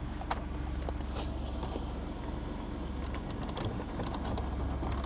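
Holden VN Commodore engine running steadily, sounding healthy despite the car having sat for a long time, with a few faint clicks over it.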